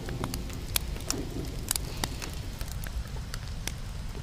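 Wood campfire crackling: scattered, irregular sharp pops over a low steady rumble.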